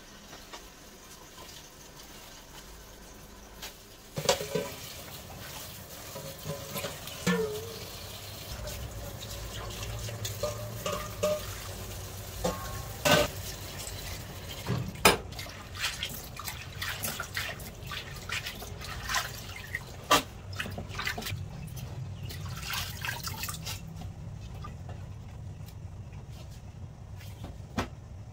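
Kitchen tap water running into a stainless steel bowl as hands wash leafy greens in the sink, starting about four seconds in, with scattered sharp knocks and clatters.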